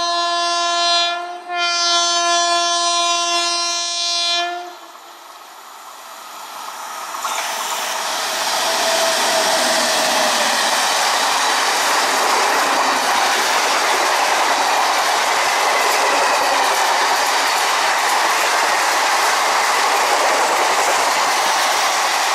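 WAP-7 electric locomotive sounding its horn in a long blast, broken once briefly, that ends about four and a half seconds in. From about seven seconds the express train's coaches rush past at high speed, a steady loud rushing with wheel clatter on the rails.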